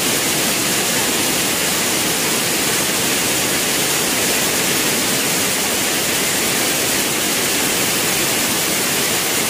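Weaving looms running in a gauze weaving mill: a loud, steady machine din without breaks or distinct beats.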